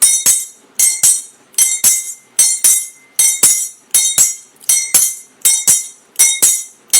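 Jingling metal percussion beaten in a steady double-beat: two quick strikes close together, a pair a little faster than once a second, each strike ringing brightly.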